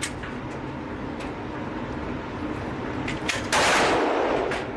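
Gunshots at a shooting range: a few sharp cracks, then a much louder shot about three and a half seconds in whose sound echoes and fades over about a second.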